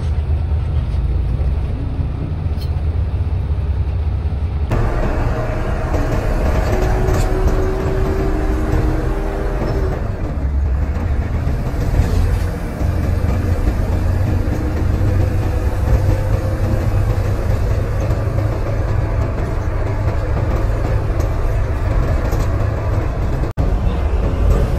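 Hino AK8 bus on the move: a steady, heavy low rumble of diesel engine and road noise, as heard riding aboard. The sound changes abruptly about five seconds in and drops out very briefly near the end.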